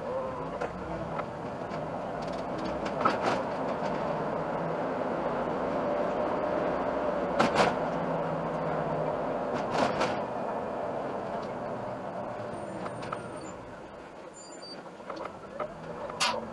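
Iveco Urbanway city bus driving, heard from the driver's cab: a steady run of engine and road noise broken by several sharp knocks or rattles. The noise eases off toward the end as the bus slows.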